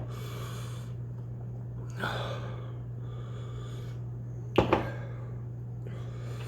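A single sharp knock of something hard set down on a table about four and a half seconds in, between short hissy rushes of breath, over a steady low hum.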